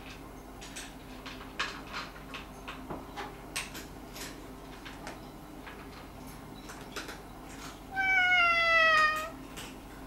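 A domestic cat meows once near the end, a single drawn-out call about a second long that slides slightly down in pitch. Before it there are scattered light clicks and taps.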